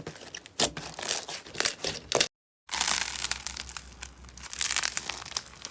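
Slime being squeezed and pressed by hand, giving dense crackling and popping, with a brief cut to dead silence a little over two seconds in before the crackling resumes.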